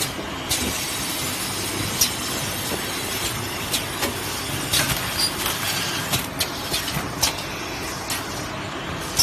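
Automatic heat-shrink film wrapping machine running as it wraps a row of tissue boxes: a steady mechanical running noise with frequent irregular clicks and knocks.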